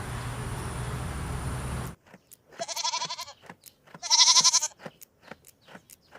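Steady background noise that cuts off abruptly about two seconds in. Then a goat bleats twice, each bleat quavering, the second louder, with a few faint clicks afterwards.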